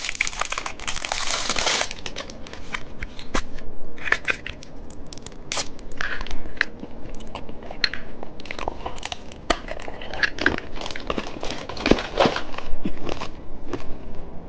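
Plastic candy packaging handled: a rustle of about two seconds, as of wrapping being torn or pulled, then irregular crinkling and small plastic clicks.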